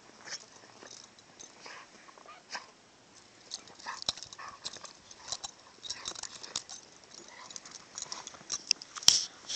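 Two dogs playing rough in deep snow: short dog vocalisations over scattered scuffling and crackling snow noise, with a sharp snap about nine seconds in.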